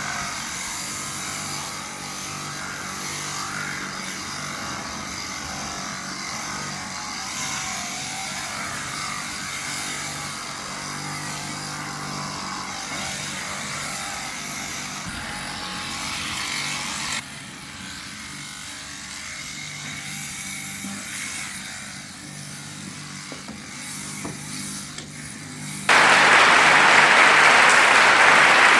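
Electric sheep-shearing machine running with a steady hum; about seventeen seconds in the sound drops away abruptly. Near the end a loud, steady rushing noise starts suddenly.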